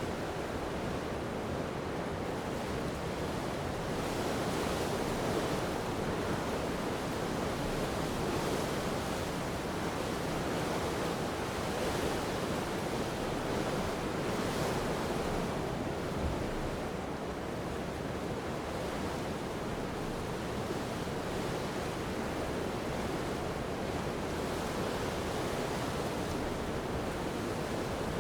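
Strong coastal wind blowing with surf washing on the shore: a steady rush of noise that swells a little a few times.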